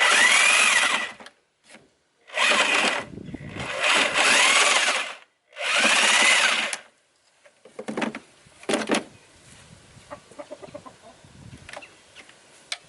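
Corded power tool cutting into a chicken-coop basket in four short bursts, its motor whine bending in pitch as it bites. A couple of knocks follow, with quieter handling noise.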